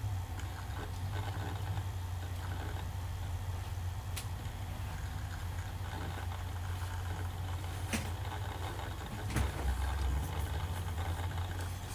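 Dell Latitude D610 laptop running, picked up through a phone resting on its case: a steady low hum with a few sharp clicks, at about four seconds, eight seconds and nine and a half seconds in.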